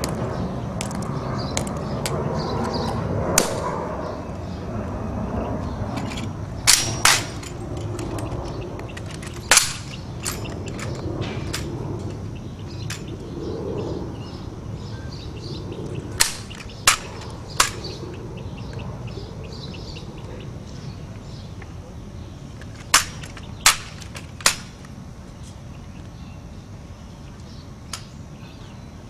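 Sharp clacks of a ceremonial rifle-inspection drill, the rifle handled and struck with crisp precision, mostly in quick groups of two or three.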